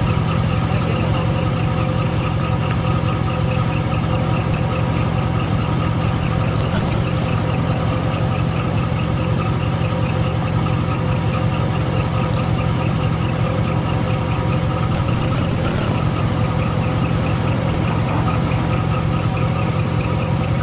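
A motor running steadily, a loud even drone with a few steady tones over it.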